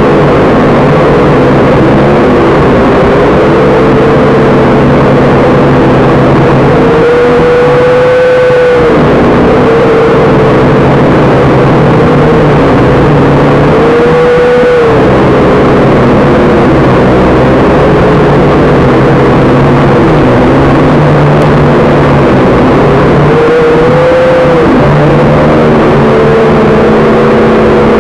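Small quadcopter's electric motors and propellers whining loudly, the pitch wavering up and down with the throttle. There are three short surges where the whine climbs and holds, about a quarter, half and five-sixths of the way through, over a steady low rumble of wind on the microphone.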